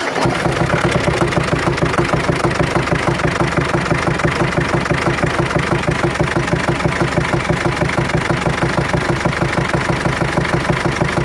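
Cummins ISF 2.8 four-cylinder turbodiesel in a GAZelle idling with a steady, regular knock that is dull rather than ringing. The knock is the sign of a broken exhaust valve rocker arm on one cylinder.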